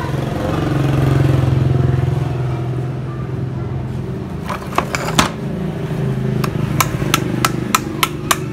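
An engine runs close by with a steady low hum that swells about a second in and then fades. From about halfway on, sharp metallic clicks and clinks come as the saw's armature and metal parts are handled and fitted into the motor housing, several in quick succession near the end.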